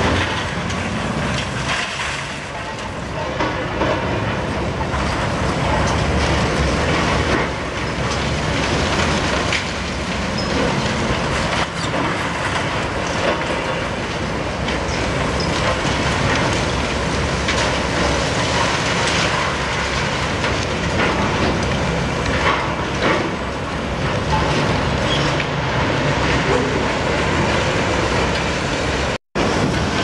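Demolition in progress: a long-reach demolition excavator's hydraulic crusher jaw crunches through a concrete building, with the machine's engine running and concrete and debris cracking and falling. The sound is steady with many small cracks and knocks, and breaks off for an instant near the end.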